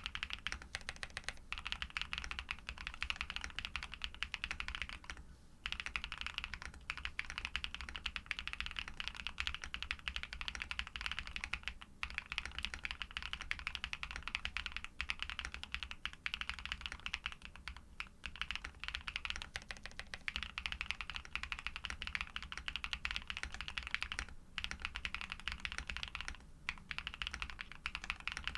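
Fast, continuous typing on a custom Neo80 v2 mechanical keyboard with lubed Pado v2 switches, a polycarbonate plate, PBT keycaps and Cherry stabilizers. The typing stops briefly a few times.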